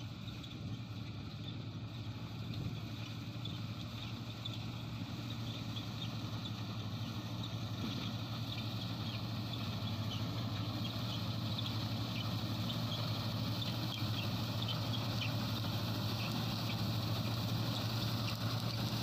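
New Holland 8070 combine harvester running steadily while it harvests wheat: a continuous diesel engine and machinery noise with a low steady hum, growing gradually louder.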